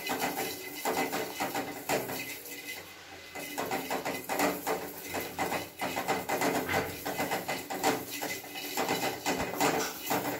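Wooden spatula scraping and knocking against a steel kadai as poppy seeds are stirred while dry-roasting. The strokes are quick and irregular, with a short lull about two to three seconds in.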